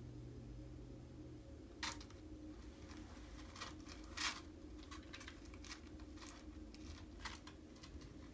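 A kitten's paws scratching and rustling in cat litter and on a cardboard litter tray: a dozen or so short, irregular scrapes and rustles, the loudest about two and four seconds in.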